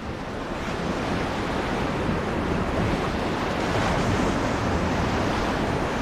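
Rushing whitewater of a river rapid around an inflatable raft: a steady rush of water that grows a little louder over the first few seconds.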